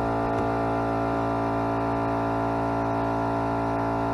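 Air compressor running with a steady, unchanging hum.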